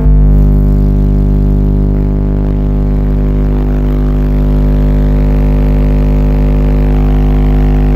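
Wolfram AU 15 car subwoofer playing a steady 50 Hz test tone, a full-power burp of about 2,000 watts that the meter reads at around 140 dB in the closed car. It comes through as a loud, unbroken low drone with a buzzy stack of overtones.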